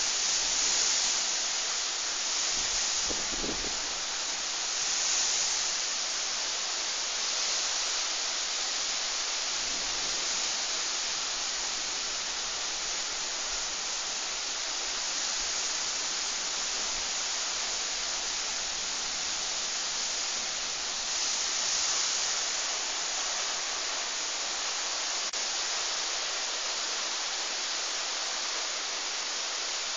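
Heavy rain pouring in a gusty storm wind: a steady hiss that swells as gusts come through, about five seconds in, around eight seconds and again about twenty-one seconds in.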